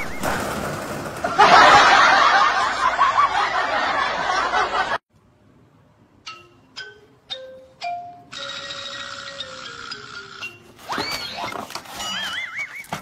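Comedy sound effects and music: a warbling whistle, a loud busy stretch that cuts off suddenly about five seconds in, then a few struck notes and a tone sliding down in steps, with the warbling whistle again near the end.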